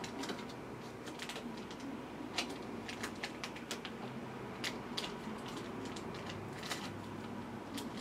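Scattered light clicks of typing on a computer keyboard, irregular and a few at a time, over a low steady room hum.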